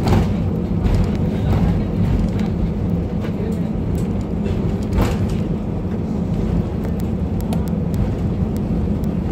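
Steady low cabin rumble inside an Airbus A320 during its landing, heard from a passenger seat, with a sharp knock at the start and another about five seconds in.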